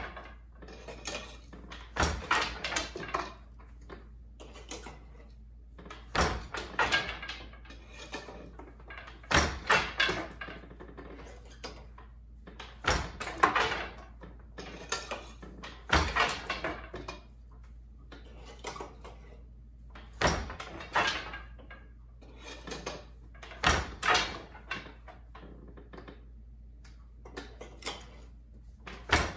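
Wooden knocks and rattles of a Glimåkra Standard floor loom being woven on. The beater strikes the cloth, and the shafts and treadles shift with a short clatter, the cycle repeating about every three to four seconds.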